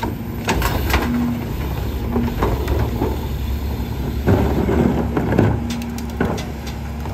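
Peterbilt New Way rear-loading garbage truck running with a steady low drone while recycling carts are tipped into its hopper: plastic carts knock against the hopper edge, and recyclables clatter in. The clatter is loudest about four to five and a half seconds in.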